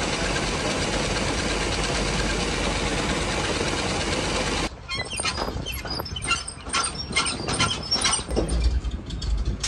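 Old pickup truck driving, heard from inside the cab as a steady blend of engine and road noise. About 4.7 s in, the sound cuts off abruptly and gives way to irregular clicks and rattles, with bursts of low rumble near the end.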